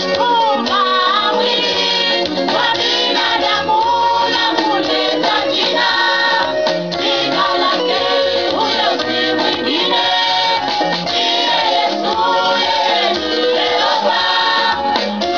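Women's church choir singing a gospel song live, several voices together, over instrumental accompaniment.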